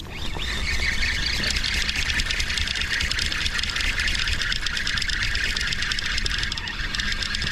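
Fishing reel spinning on a squid-jigging rod: a steady whir made of fine, rapid clicks that starts suddenly.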